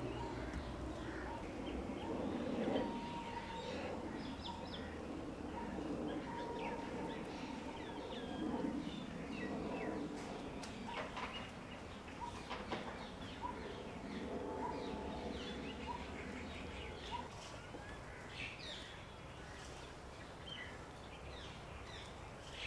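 Birds chirping in short, scattered calls over low, steady background noise.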